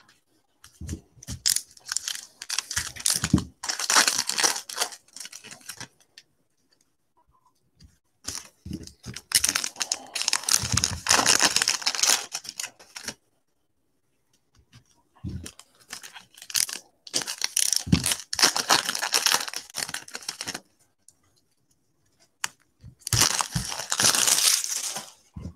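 Foil trading-card pack wrapper being torn open and crinkled by gloved hands, in four separate bouts of rustling and tearing with short silences between.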